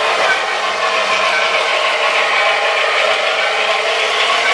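O gauge electric model trains running on three-rail tinplate track: a steady rattle and whir of metal wheels on the rails and the locomotive motors.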